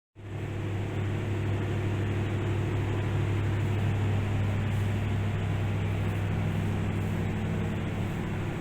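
Large diesel engine running at a steady speed, a loud even hum with a strong low tone.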